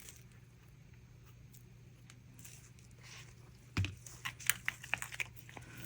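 Small plastic resin-crafting items being handled: a knock about four seconds in, then a run of light clicks and taps, over a faint low hum.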